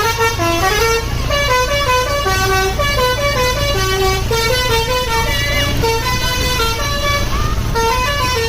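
Basuri 'telolet' musical bus horn playing a tune: a quick run of stepped horn notes, changing several times a second, over a low engine hum.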